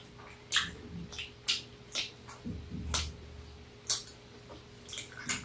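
Eating and food-handling sounds at a low table: irregular sharp clicks and ticks, roughly one a second, with a soft low thump about halfway through.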